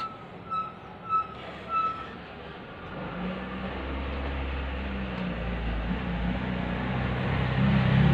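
Four short high beeps about half a second apart, then a low engine rumble that grows steadily louder, as of a motor vehicle approaching.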